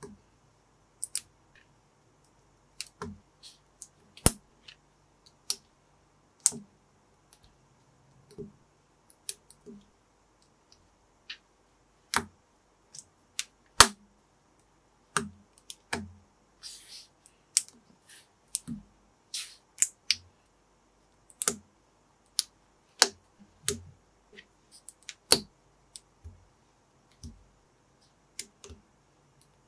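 Small plastic building bricks being pressed and snapped together by hand: sharp, irregular clicks, sometimes several in quick succession, with short pauses between them and a brief rustle of handled pieces partway through.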